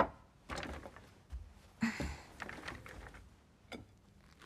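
Faint scattered clicks and soft rustles, like light handling noise, with a sharper click at the start.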